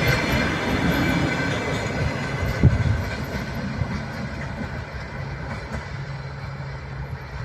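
Passenger train running past on the rails, its wheel rumble and faint high wheel tones fading as it draws away, with one sharp knock about two and a half seconds in.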